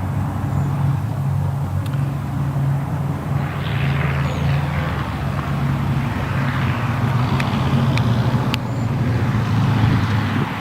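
An engine running steadily with a low hum, under a wash of rushing noise that swells a little now and then.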